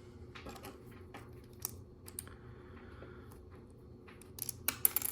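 Light plastic clicks and taps of LEGO bricks being handled and pressed together: a few scattered clicks, then a quick run of louder clicks near the end.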